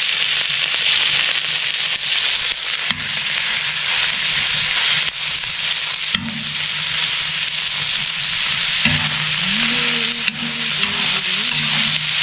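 Raw ground beef sizzling on a hot plough-disc griddle (disco de arado) over a wood fire, a steady frying hiss, while a perforated metal skimmer stirs and breaks up the meat against the disc.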